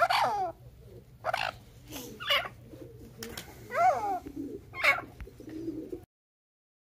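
A francolin (tetar) giving a series of short calls, about five in six seconds, several of them dropping in pitch, with softer low notes between them. The sound cuts out shortly before the end.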